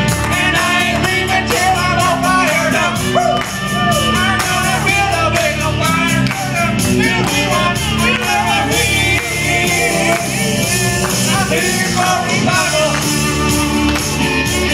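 Live church worship music: voices singing over a band, with steady bass notes and a regular percussion beat.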